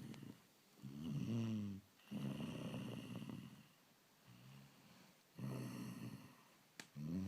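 A lion snoring in slow, regular breaths, each snore about a second long, with a quieter stretch in the middle. A sharp click sounds near the end.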